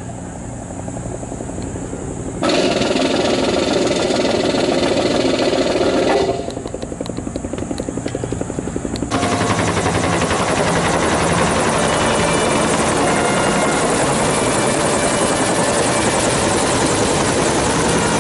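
Military helicopters flying low overhead: a steady, fast chop of rotor blades over engine noise. The sound changes abruptly a few times in the first nine seconds, as at cuts, then runs on evenly.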